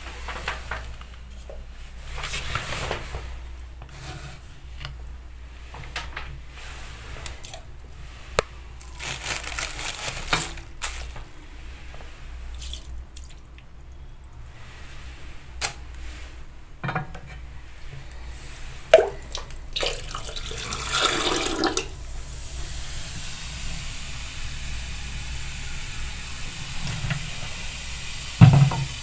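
Liquid poured into a metal bathroom floor drain over a drain-cleaning powder, with scattered clinks and knocks of a spoon on the drain. From about two-thirds through, a steady fizzing hiss as the mixture bubbles in the drain, with a sharp knock near the end.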